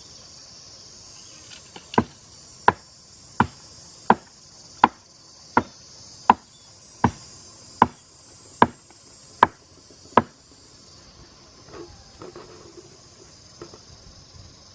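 Twelve evenly paced chopping blows, about one every three-quarters of a second, that stop after about ten seconds. A steady high chirring of insects runs underneath.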